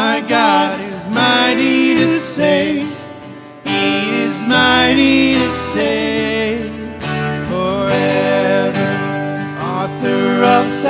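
Two male voices singing a worship song together, accompanied by two strummed acoustic guitars.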